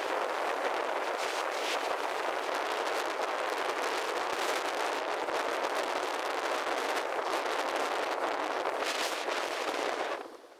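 Strong sea wind and surf at the shore, a steady rushing noise that cuts off suddenly near the end.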